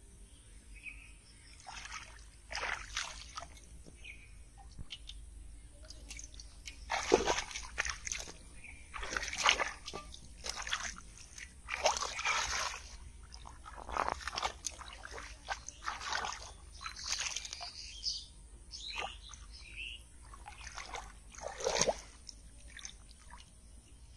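Shallow muddy water splashing and sloshing in irregular bursts as hands and feet churn through it while groping for fish.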